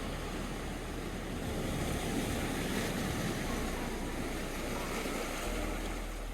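Ocean surf: a steady rush of waves, swelling a little from about a second and a half in.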